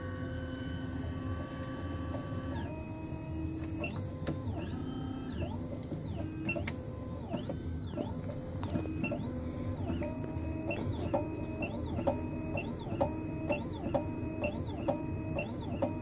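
Sec-9 computerized key cutting machine cutting a high-security key blank. A steady motor whine gives way, about three seconds in, to a repeating pattern of motor tones rising and falling in pitch as the cutter steps along the blade, with a few sharp clicks.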